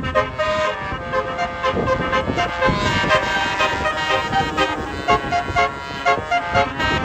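Tour bus's basuri telolet horn playing a tune of short, quick notes that hop up and down in pitch.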